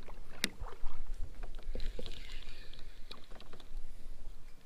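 Kayak paddle strokes: the blade dips and splashes in the water, with a few sharp knocks of the paddle against the plastic kayak, the loudest about half a second in.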